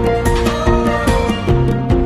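Instrumental background music with a steady beat under held melody notes.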